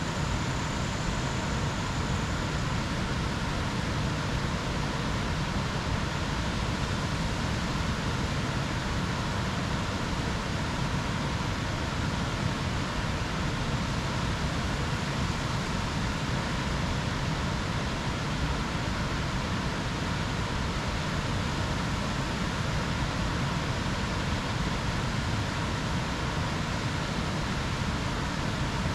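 Steady jungle ambience: an even rushing noise with no separate events, and a faint thin high tone only in the first few seconds.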